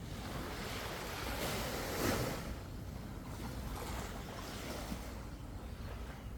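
Sea waves breaking and washing on the shore, swelling to a peak about two seconds in and easing off, with low wind rumble on the microphone.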